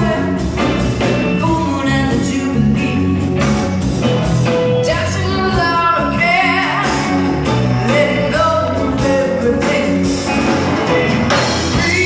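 Live rock band playing a song: a female singer's vocal over electric guitars, bass and drums.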